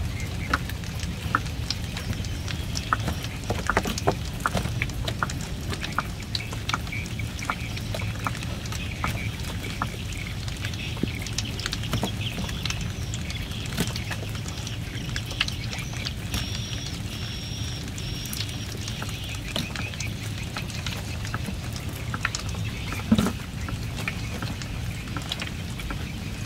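Live shrimp being handled: scattered sharp taps and rattles as they flick against a plastic basket and are dropped into a styrofoam box, over a steady low rumble, with one louder thump near the end.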